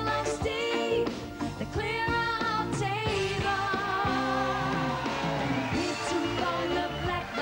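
Two women singing a pop song together over a live band, holding one long wavering note about halfway through.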